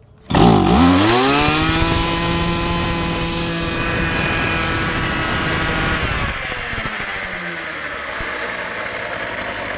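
Small two-stroke brush cutter engine, the Mitsubishi TU33, cutting in suddenly and running at a high, steady speed. About six seconds in its note drops to a lower, rougher running.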